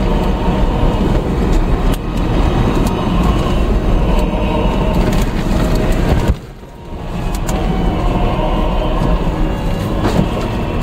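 Inside the cabin of a vehicle driving over a rough sandy desert track: the engine and tyres rumble steadily, with rattles and knocks from the bumpy ground. The rumble drops away suddenly about six seconds in and builds back up within about a second.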